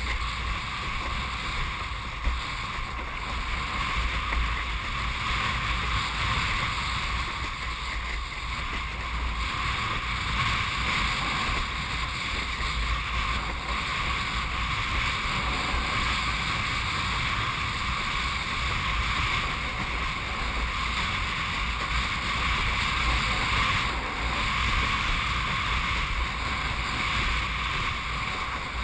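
Steady rush of wind and water as a windsurf board sails along, with wind buffeting the microphone as a low rumble.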